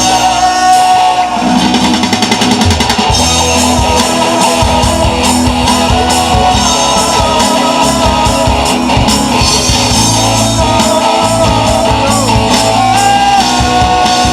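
A live band playing loudly on stage: drum kit beating under guitar, with a held melody line that slides between notes.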